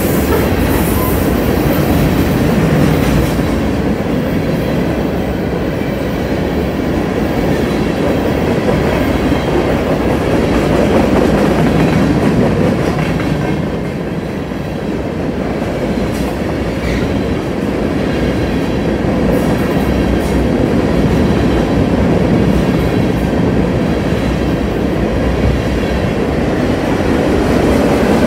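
Freight train cars, covered hoppers and tank cars, rolling past close by: a loud, steady rumble of steel wheels on rail.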